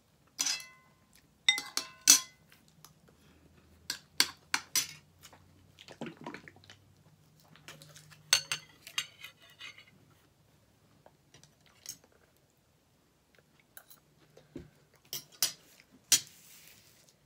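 Metal fork and spoon clinking and scraping against ceramic plates and bowls in scattered, irregular clicks, some with a short ring. Near the end, a brief hiss as salad dressing is squeezed from a plastic bottle.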